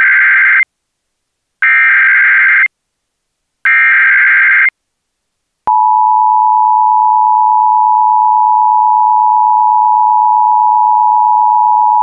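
Emergency Alert System activation: the end of one SAME header data burst, then two more, each about a second long and two seconds apart, followed about halfway through by the steady two-tone EAS attention signal. The tones announce a local area emergency alert.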